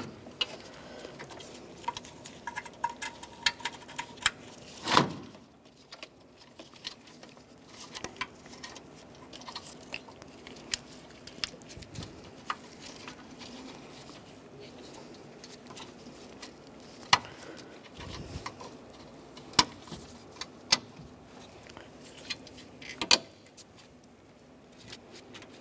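Scattered clicks and light rattles of a car's wiring harness, its plastic connectors and push-on retainers being handled and snapped into place in an engine bay, with one louder thump about five seconds in.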